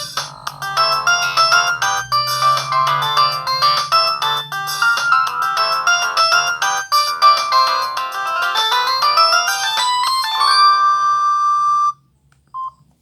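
A built-in ringtone of a Samsung SGH-T459 Gravity phone plays as a fast synthesized melody of many short notes. The notes climb in a run near the end and finish on a long held note, which cuts off about 12 seconds in.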